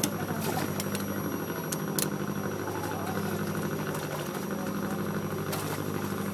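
An engine or motor running steadily with a low, even hum, with a few short knocks near the start, about two seconds in and near the end.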